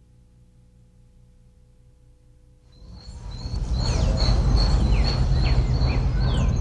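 A faint low hum, then an outdoor town ambience fading up about three seconds in: a low rumble, birds chirping in quick falling notes, and a steady pulsing high-pitched trill.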